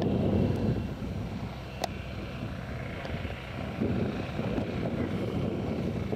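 Wind buffeting the microphone: a gusty low rumble, heaviest in the first second. There is a single sharp click a little under two seconds in.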